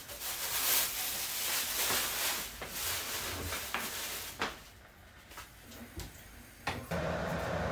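Plastic grocery bag rustling and crinkling as hands rummage through it, then a few light knocks and clicks. A steady hum starts near the end.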